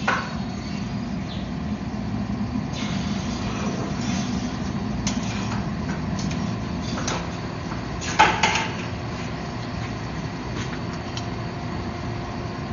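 Steady drone of running forge-shop equipment, with a sharp knock at the start and a couple of louder metallic knocks about eight seconds in.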